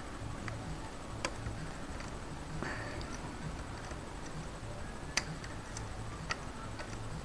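Lock picks working inside a euro cylinder lock: a few scattered sharp metallic clicks and ticks, the loudest about a second in and twice near the end, over a faint low hum.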